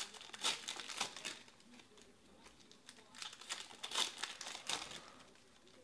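Shiny foil trading-card pack wrapper crinkling and tearing as it is ripped open by hand, in two spells of crackling: one at the start and one from about three seconds in.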